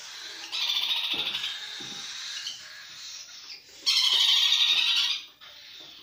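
Young parrot chicks giving rapid, rasping food-begging calls while being hand-fed with a spoon. The calls come in two bouts, the second louder and about a second long, starting near four seconds in.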